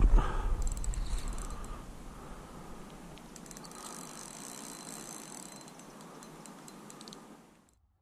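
Fishing reel worked while a hooked fish is played on a bent rod: fine mechanical clicking and whirring in spells, about a second in, again from about three to five seconds, and near the end. A low rumble on the microphone at the start fades over the first two seconds.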